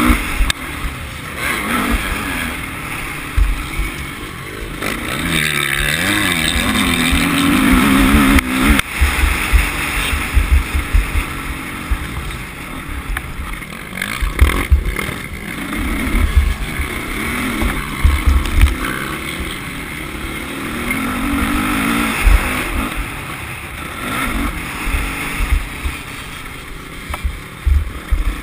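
A motocross bike's engine heard close up from on board, revving up and falling back again and again as it is ridden round a dirt track. Wind buffets the microphone, with knocks from the bumps.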